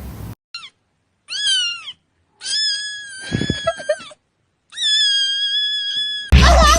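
A cat meowing in high-pitched calls: one short falling meow, then two long, drawn-out meows held at a level pitch. Music starts suddenly near the end.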